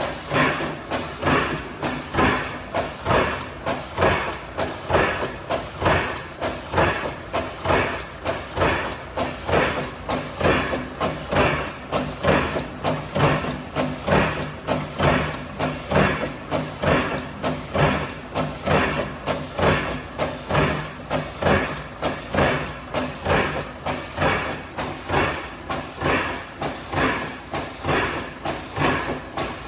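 IMA CD180 filling machine running, cycling rhythmically about one and a half times a second with a hiss of air on each stroke.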